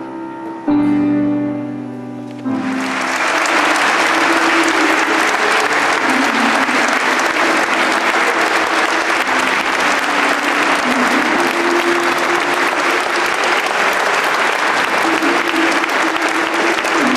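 Music with held notes, then about two and a half seconds in a crowd breaks into applause that carries on steadily, the music still heard underneath.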